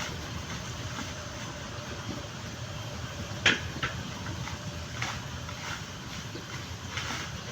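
Coconut husk being pried and torn off by hand: a sharp crack about three and a half seconds in and a few lighter snaps, over a steady low rumble.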